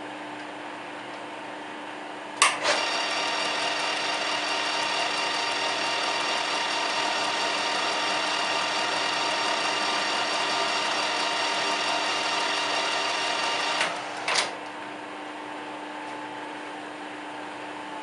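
Metal lathe switched on with a sharp click about two seconds in, then running steadily with a whine of several fixed tones as a boring bar takes a roughing cut through a connecting rod's white-metal big-end bearing. It stops about eleven seconds later, with a second click soon after.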